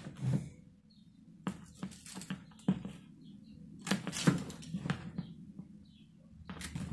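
Hand pruning shears snipping through dry, woody geranium stems: several sharp snips at irregular intervals, a few in quick succession.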